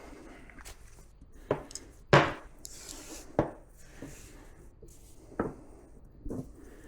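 Rope ascender and climbing hardware being handled: five sharp clacks and knocks, the loudest about two seconds in, with faint rope rustling between them.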